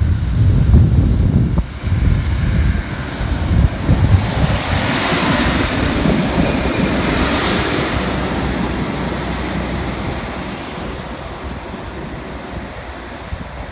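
A two-car diesel multiple unit passing along the platform. A heavy low rumble in the first few seconds gives way to a rush of wheel and rail noise as it goes by close, peaking about halfway, then fading as it draws away. Wind buffets the microphone.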